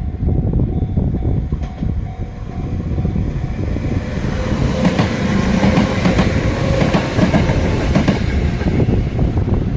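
A Sanyo Electric Railway train running past, with a steady low rumble and its wheels clacking over rail joints, loudest in the middle few seconds.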